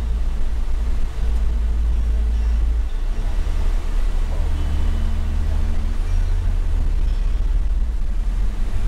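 Cabin noise inside a Toyota HiAce Commuter van driving slowly through town: a steady low engine and road rumble. An engine drone grows clearer for a couple of seconds midway, then settles back.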